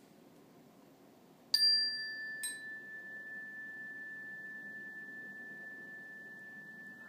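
A handheld metal chime struck twice, about a second apart, starting about one and a half seconds in, each strike with a bright metallic attack. It then rings on as a single clear high tone that holds steady and fades only slowly.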